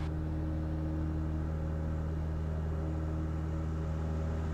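Cessna 172 Skyhawk's piston engine and propeller running at takeoff power during the takeoff roll of a touch-and-go, a steady, even drone.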